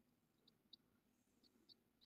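Near silence: room tone with faint short high-pitched ticks that come in pairs about once a second.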